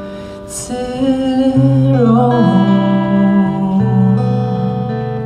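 Live acoustic duet: a male voice singing long held notes through a microphone over a fingerpicked acoustic guitar.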